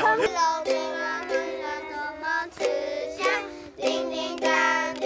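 A child's ukulele strummed, playing a string of chords, with a short break a little past the middle.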